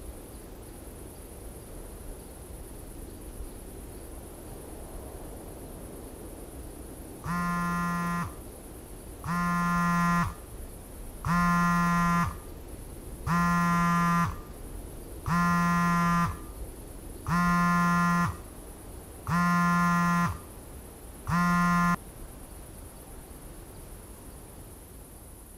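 A repeating electronic buzzer tone: eight identical buzzy beeps, each about a second long, one every two seconds, starting about seven seconds in, over a low steady background hum.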